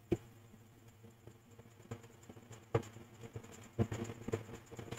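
A few faint, isolated computer keyboard key presses over a low steady hum.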